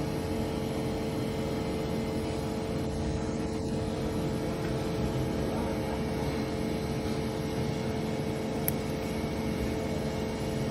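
A steady, unchanging mechanical drone with a low hum tone running through it.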